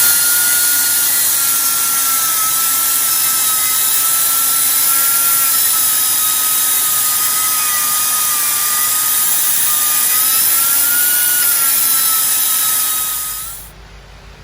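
Grinder running and grinding down practice welds on metal: a steady whine over a heavy hiss. It stops near the end.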